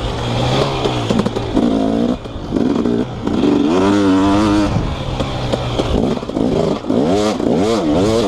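2018 KTM 250SX two-stroke engine with an FMF Powercore 2 silencer being ridden hard, its pitch climbing and dropping as the throttle is opened and chopped through the gears. It rises and falls in quick succession several times in the second half.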